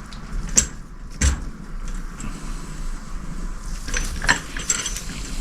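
Sharp clicks and light knocks of motorcycle fork parts being handled while a greased fork oil seal is worked down over the fork stanchion: two distinct clicks early, then a cluster of small clicks and rattles near the end.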